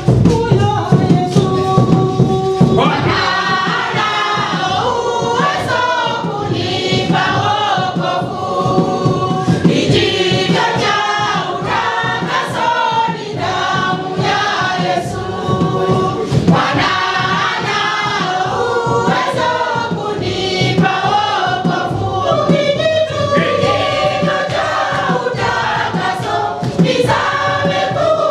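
A Salvation Army church choir, mostly women's voices, singing a gospel song together, with a steady beat beneath.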